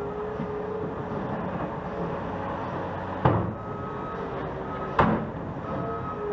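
Road construction machinery running steadily, with a droning engine and a whine, and two loud sharp bangs about three seconds and five seconds in.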